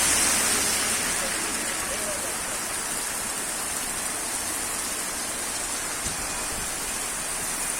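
Heavy downpour of rain falling, a steady hiss of rain on surfaces.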